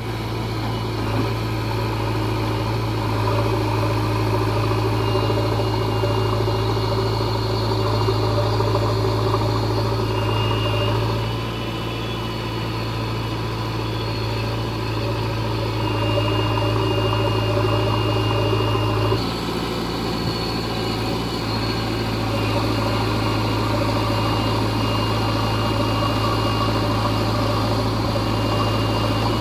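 Diesel engine of a backhoe loader running steadily as it digs and loads soil. Its note drops slightly about 11 seconds in and changes again near 19 seconds. A faint high whine comes and goes.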